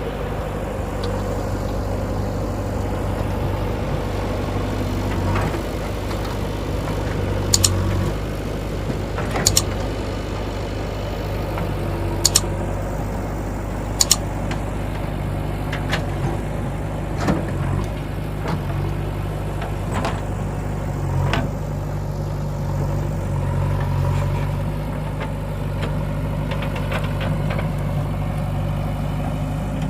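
Diesel engine of a JCB 3DX backhoe loader running steadily while it works, its pitch shifting now and then, with several sharp metallic clanks.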